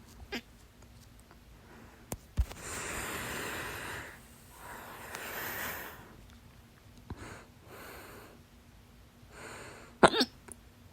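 A woman hiccupping: a few faint hiccup clicks and soft breaths, then one sudden, loud voiced hiccup near the end.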